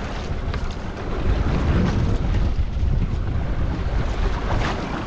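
Wind buffeting the microphone over choppy sea water washing around a small boat.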